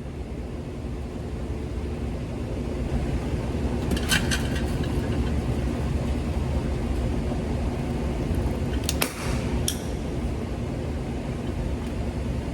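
A steady low motor hum, with a few short sharp clicks about four seconds in and again about nine seconds in.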